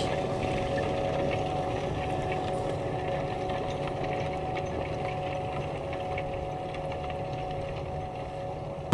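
Tractor engine running steadily under load with a steady whine over its drone, fading slightly toward the end.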